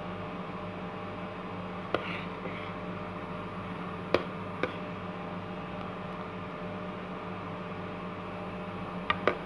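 A spoon in a bowl of thick ice cream mixture knocking against the bowl a few times: once about two seconds in, twice around four seconds, and a quick pair near the end. A steady low hum runs underneath.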